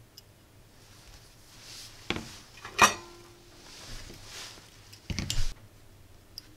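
Metal tools being handled on a soldering bench: tweezers and a soldering iron clinking and knocking against the stand and mat. There are a few sharp clinks, the loudest just under three seconds in with a brief ringing tone, then a quick cluster of knocks about five seconds in.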